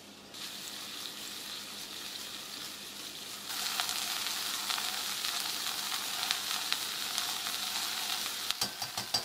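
Vegetables sizzling in a hot enamelled cast-iron pot, a steady hiss that grows louder a few seconds in. A quick run of knocks near the end.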